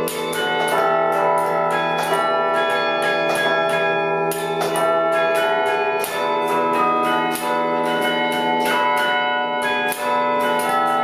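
Bell-like ringing tones struck in quick succession, several strikes a second, each tone hanging on and overlapping the next.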